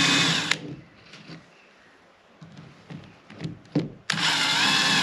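Electric drill boring small pilot holes through a plastic boat cleat into the gunwale. The drill runs steadily, stops about half a second in, a few light knocks of handling follow, and it starts again about four seconds in.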